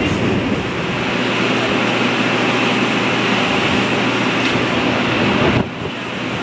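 Wind blowing across the microphone over a steady low hum from the moored ship's machinery, running before departure. The sound drops off abruptly near the end.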